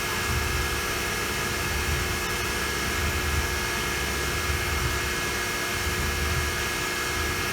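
CNC milling machine running an automatic drilling cycle, cutting tap-drill holes in a metal saw carriage: a steady machine hum and noise with several steady tones held throughout.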